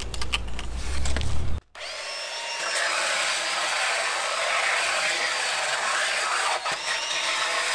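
Ryobi cordless belt sander with an 80-grit belt running steadily as it sands a softwood scaffold-plank board across the grain. It starts about two seconds in, after a few knocks over a low rumble.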